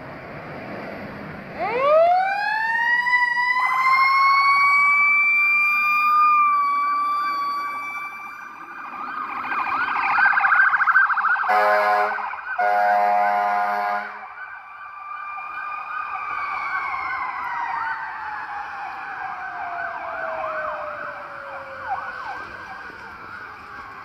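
Sirens of a responding 2017 E-One Cyclone II fire engine and 2013 International DuraStar/Horton ambulance. A mechanical siren winds up with a rising howl about a second and a half in, and an electronic siren yelps rapidly alongside it. Two air horn blasts come around the middle, then the mechanical siren winds slowly down while the electronic yelp continues.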